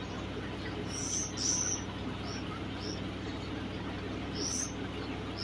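Small birds feeding on grain give about six short, high chirps, the loudest about a second and a half in, over a steady low hum.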